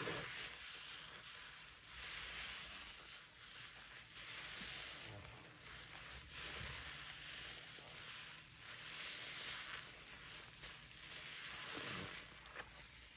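Soap-soaked sponge squeezed and released in sudsy water: wet squishing of foam and water that swells and fades about every two seconds.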